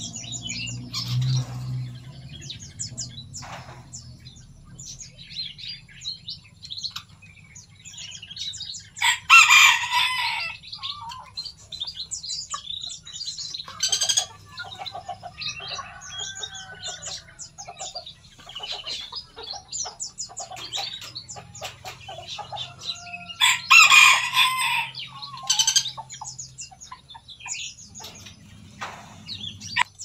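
Small songbirds, bulbuls among them, chirping busily in quick, high repeated notes over a faint low hum. Two louder, longer calls stand out, about nine seconds in and again some fifteen seconds later.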